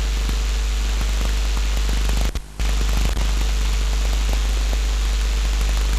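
Steady static hiss with a strong low electrical hum underneath, dropping out briefly about two and a half seconds in.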